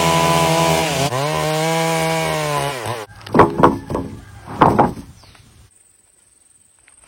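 Chainsaw running at high revs through wood, its pitch dipping about a second in as it takes load, then stopping about three seconds in. A few loud knocks follow before it goes quiet.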